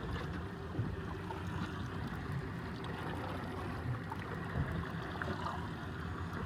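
Steady boat noise on the water: a boat motor running slowly, with water washing along the hull.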